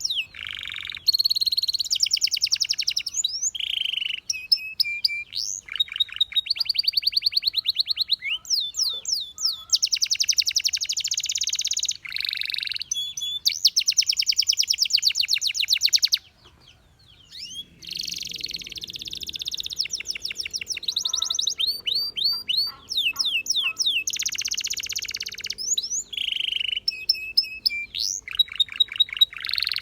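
Canary singing: long, fast trills and rolls of repeated notes, with short rising and falling whistles between them, and a brief pause a little past halfway.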